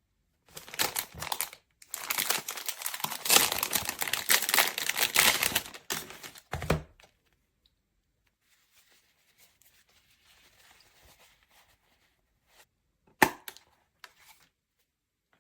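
Crinkling, rustling handling noise for about five seconds, then a low thump; near the end, one sharp click.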